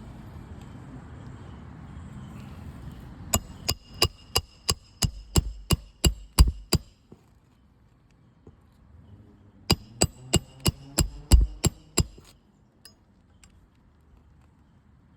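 Roofing hammer driving roofing nails into an asphalt shingle roof: two runs of quick blows, about three a second, each with a ringing metallic ping, the hardest blows near the end of each run as the nail is seated.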